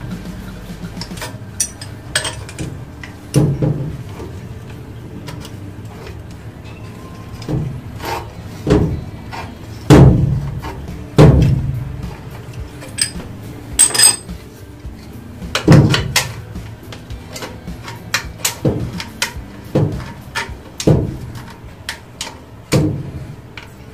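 A metal wrench knocking and clinking against a metal water pipe and its fittings as a valve is worked onto it under a sink. The clanks are irregular, with the loudest about ten, eleven and sixteen seconds in.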